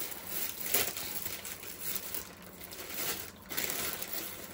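Packaging crinkling and rustling as it is handled, in irregular bursts.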